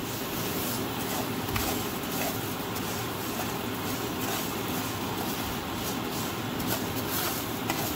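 White plastic slotted spatula stirring dry, browning rice with diced onion and garlic in a hot non-stick pan: grains scraping and rattling against the pan in many quick strokes over a steady background noise.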